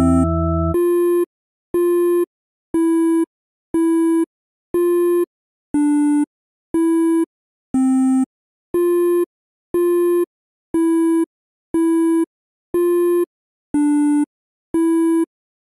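Synthesizer outro: a held chord with bass stops just under a second in, then a buzzy electronic beep repeats about once a second, each about half a second long, mostly on one pitch with an occasional lower note, much like a phone's busy tone.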